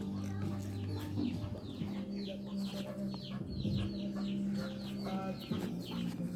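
Many short, high bird chirps, each falling in pitch, several a second, over a steady low drone.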